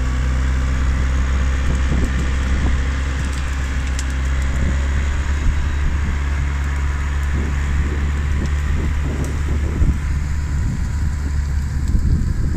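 Diesel engine of a Timberjack forestry machine running steadily as the machine crawls along. Wind buffets the microphone with irregular low rumbles in the second half.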